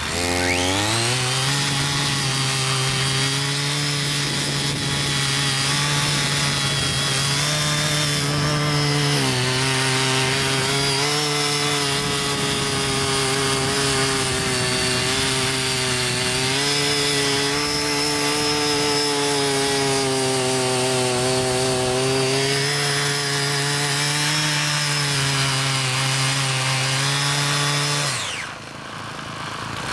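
Small petrol engine of a mini rotary tiller revving up to high speed in the first second and running hard and steady as the tines churn chaff into soil, the engine speed wavering slightly under the load. Near the end the engine drops back toward idle.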